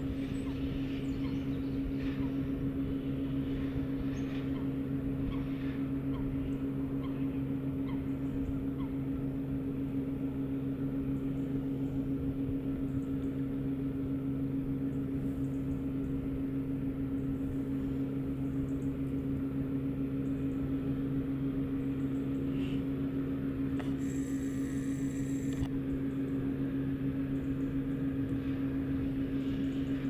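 A steady, low mechanical drone that holds one pitch without rising or falling.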